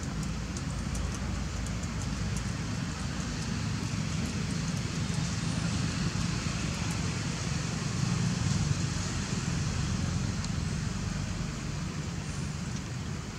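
Steady outdoor background rumble with a hiss over it, like distant road traffic, and a few faint ticks scattered through it.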